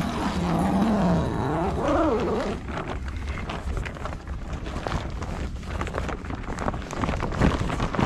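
Long zipper on a canvas portable-garage door being pulled open: a rasp that rises and falls in pitch with the pull for about two and a half seconds. After it comes irregular rustling and scuffing of the canvas being pushed aside.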